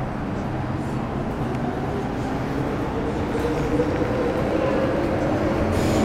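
Running noise inside an MTR Metro Cammell M-Train electric multiple unit with GEC GTO chopper traction: wheel and motor rumble growing steadily louder, with a faint motor tone that rises slightly from about halfway.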